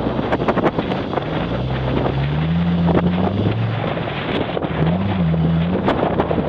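VW T4 Syncro van's engine running, its note rising and falling with the revs as the van is driven in snow. Wind buffets the microphone throughout, with a scatter of short crackles.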